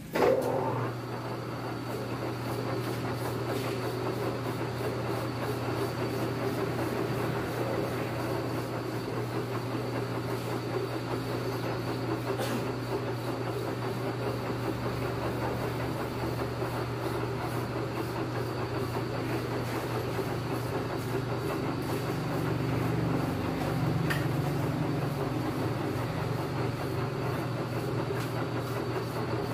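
Metal lathe turning a crankshaft held in its four-jaw chuck: a sharp clunk as it starts, then a steady machine hum and rumble while the crank spins.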